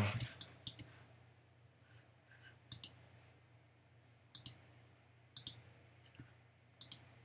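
Computer mouse clicking while selecting objects on screen. There is a scatter of clicks near the start, then quick double-clicks every second or two.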